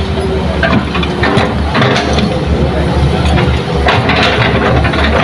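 Heavy diesel engine of earthmoving machinery running steadily with a deep low hum, with short louder noises about two and four seconds in.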